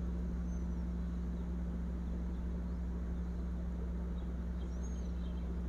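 Steady low hum of background room noise, with no distinct event.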